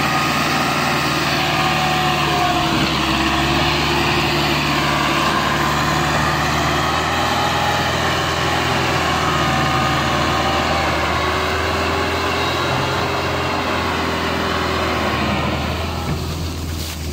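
Massey Ferguson 385 tractor's diesel engine running hard under heavy load, pulling a fully loaded sugarcane trolley, a steady drone with black smoke pouring from the exhaust.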